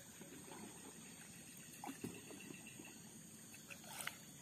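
Quiet swamp-river ambience: a steady high insect drone, with a few soft knocks and water sounds from the wooden canoe about two seconds in and again near the end.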